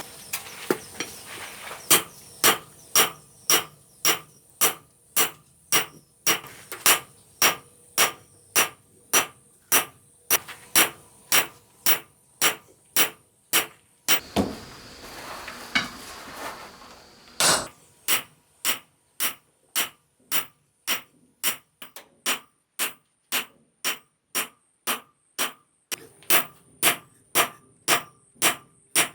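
Hammer blows on steel over an anvil during knife forging, in a steady rhythm of about two strikes a second, each with a short metallic ring. The blows stop for a few seconds just after the middle, then resume.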